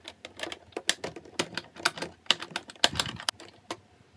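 Irregular plastic clicking and crackling, several clicks a second, as knob fasteners are twisted loose from a thin vacuum-formed plastic packaging tray. A duller knock comes about three seconds in.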